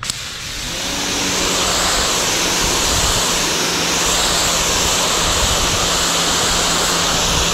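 Giraffe Tools Grandfalls electric pressure washer blasting a water jet through a 25° green nozzle onto a concrete driveway: a loud, steady hiss with a low hum underneath. It cuts in sharply and cuts out sharply.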